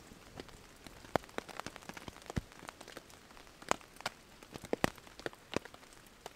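Drops of rain falling on the hammock's tarp overhead: scattered, irregular sharp ticks, a few each second, with some louder single drops.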